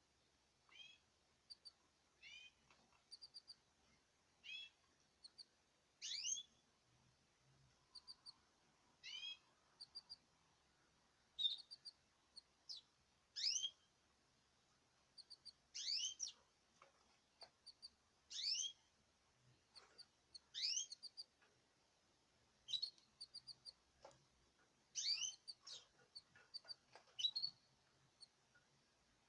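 Caged birds calling: short rising chirps repeated every second or two, with quick little clusters of very high, tiny chirps between them.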